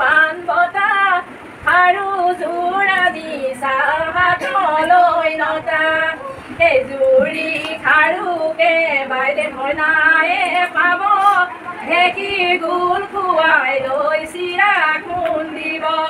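Women singing a traditional Assamese wedding song (biya naam), one melodic line that glides and bends without pause.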